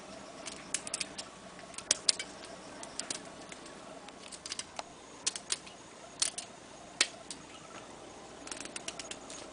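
Kuri Kuri Bōzu chestnut peeler, a scissor-action tool with a serrated gripping blade and a cutting blade, snipping away a chestnut's hard outer shell together with its inner skin. It makes sharp, irregular clicks and crackles, several in quick clusters, with short pauses between cuts.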